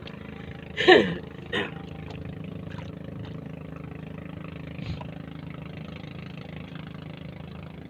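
Steady engine hum, even and unchanging. About a second in comes a short, loud, falling voice-like cry, and a briefer sound follows just after.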